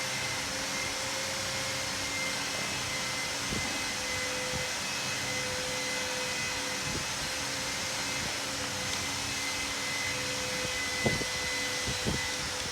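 Steady whir of a running fan-type machine with a constant tone in it, and a few light knocks, the loudest about eleven seconds in.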